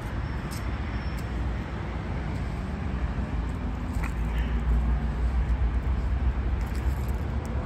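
Outdoor city ambience dominated by a steady low rumble of road traffic, with a vehicle engine faintly audible in the middle.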